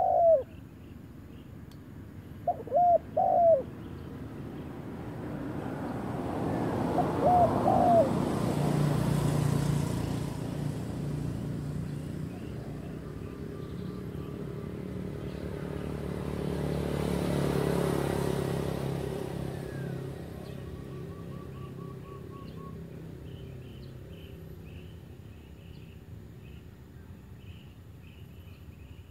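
A dove coos in short hooked notes three times in the first eight seconds. Vehicles pass twice, each a rumble that swells and fades, the first around eight seconds in and the second around eighteen. Faint high chirping follows near the end.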